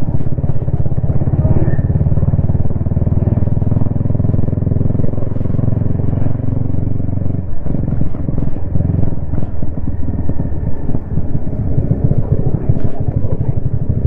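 Yamaha XSR155's single-cylinder engine and exhaust running under way, heard from the rider's helmet. The engine note breaks and dips briefly about halfway through, then picks up again.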